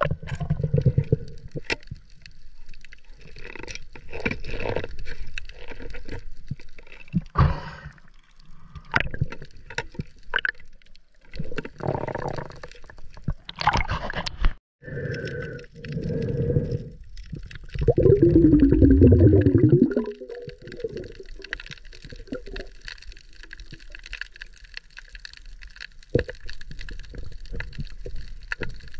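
Water sloshing and gurgling around an underwater camera during a dive, in uneven surges. About eighteen seconds in there is a louder gurgle lasting a couple of seconds, with a pitch that falls.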